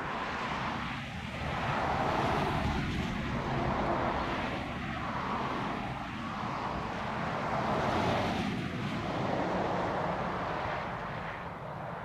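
Engine drone heard at a distance, a dense rushing noise that swells about two seconds in and again around eight seconds, then eases off near the end.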